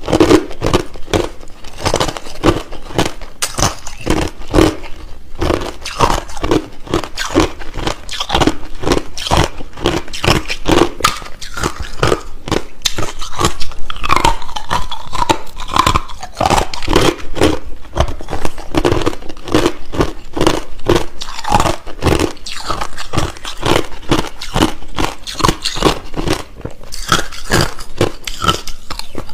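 A person biting and chewing clear, hard crushed ice close to the microphone: loud, dense, irregular crunching and crackling, several crunches a second.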